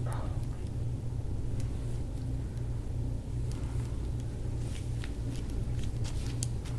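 Steady low mechanical hum of the room, with a few faint soft clicks in the second half.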